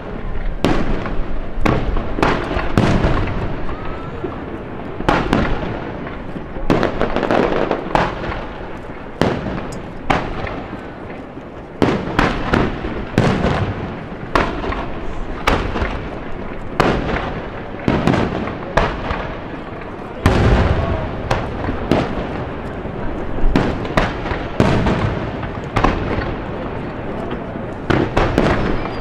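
Aerial firework shells bursting in quick succession, many booms close together, each trailing off in an echo.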